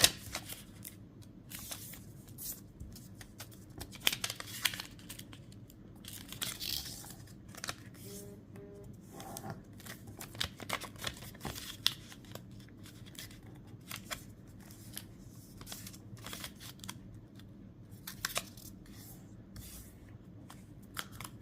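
A sheet of colored paper being folded and creased by hand: scattered rustles, crinkles and short sharp creasing swipes at irregular intervals.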